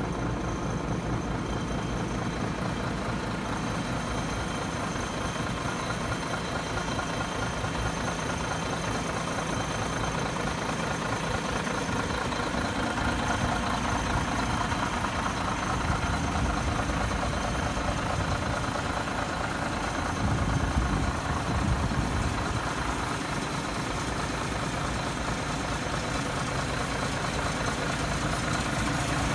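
IVECO Stralis AS440S42 tractor unit's 420 hp six-cylinder diesel idling steadily, briefly a little louder about twenty seconds in.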